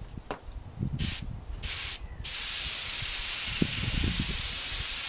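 Clear coat being sprayed onto painted bodywork: two short bursts of spray hiss, then a steady spraying hiss from a little over two seconds in.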